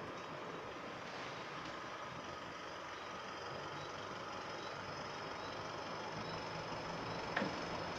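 A car approaching along the street, its engine and tyres growing slowly louder over a steady outdoor hiss.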